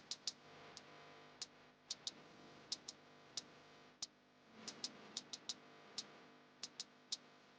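Faint, sharp light clicks at irregular intervals, about fifteen of them, some in quick pairs, over a faint steady hum.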